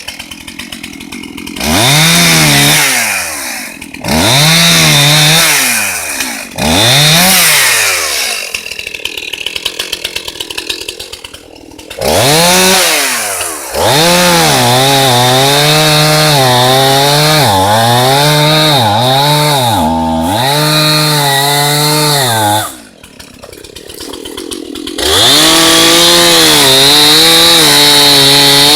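Two-stroke chainsaw revved in several short blips, then held at full throttle while cutting into a downed cherry trunk, its pitch sagging again and again under load. It drops back briefly near the end and then revs up again.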